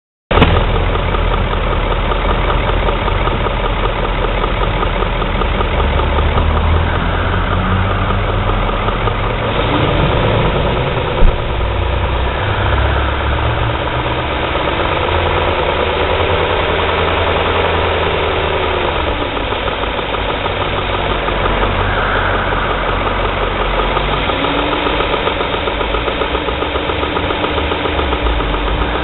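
BMW E39 M5's S62 V8 engine running at about idle with a rattling clatter, which the owner ties to the VANOS variable valve timing. One sharp knock stands out about eleven seconds in.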